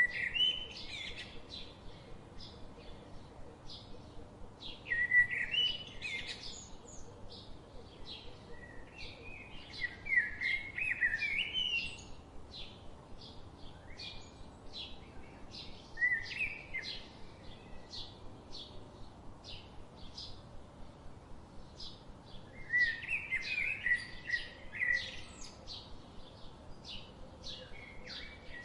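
Songbirds singing: one bird repeats a short, high note about twice a second throughout, while another sings louder warbling phrases every few seconds.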